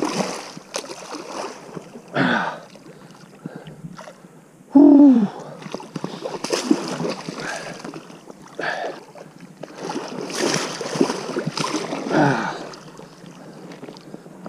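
Water splashing and sloshing in irregular bursts as a hooked wels catfish fights on the line. A short, louder sound with a falling pitch comes about five seconds in.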